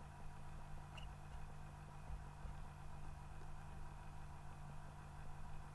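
Low, steady electrical hum and hiss of background recording noise, with one faint click about a second in.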